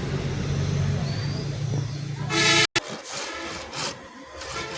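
A steady low engine-like hum, then a loud horn toot about two seconds in that cuts off abruptly. After the cut comes a run of rhythmic scraping strokes like a handsaw in wood.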